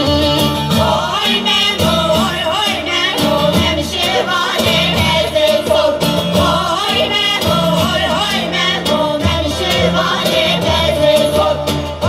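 Group of women singing a Kurdish folk song together, accompanied by a saz (bağlama) over a steady low beat.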